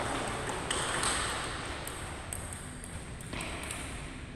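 Table tennis ball clicking sharply off paddles and the table in a rally, a few light pings spread over the first few seconds, over the low hum of the hall.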